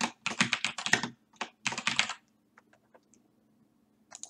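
Typing on a computer keyboard: a quick run of keystrokes for about two seconds, then a few scattered clicks.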